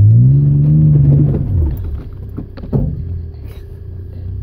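An off-road vehicle's engine revs up hard, climbing in pitch, then falls away as the throttle is let off, followed by a single sharp knock and a low steady rumble.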